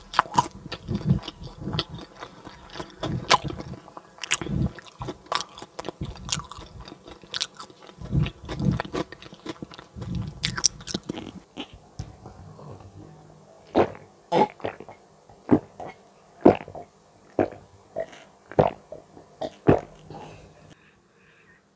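Close-miked chewing of crispy fried banana cake: dense crunching and chewing for about twelve seconds, then thinning to separate crisp crunches, a little under two a second.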